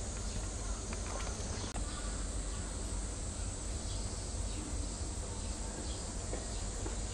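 Steady outdoor background noise, with a few faint clicks and taps scattered through it.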